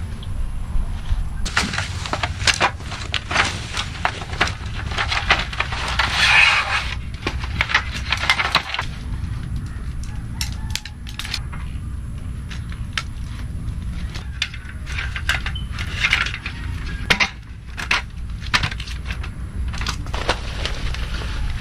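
Clicking and clattering of a metal folding camp table being put together: the shock-corded leg frame snapped open and the roll-up slat top laid on and fitted. There are many short knocks and rattles, with a busier clatter a few seconds in.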